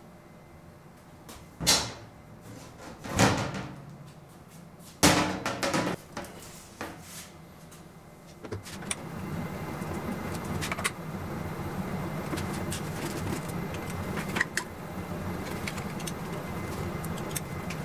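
Sheet-aluminium enclosure of a CNC milling machine being lifted off. Three loud knocks and scrapes of the metal panels come in the first six seconds, then softer, steadier handling noise with scattered small ticks.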